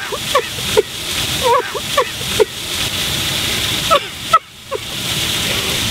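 A woman sobbing: short, broken, whimpering cries in quick irregular gasps, over a steady rushing hiss of background noise.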